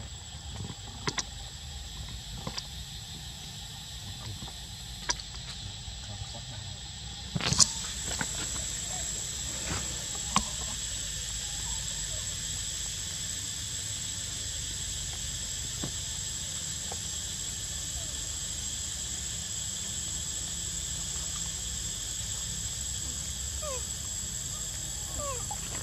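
Steady high insect drone in forest ambience, with a constant high whine throughout. A few scattered clicks, and a louder knock about seven seconds in, after which the drone is louder; a couple of faint short rising squeaks near the end.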